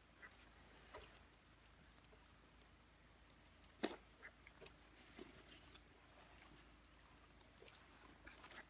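Near silence, broken by a few faint scattered clicks and taps, with one sharper knock about four seconds in.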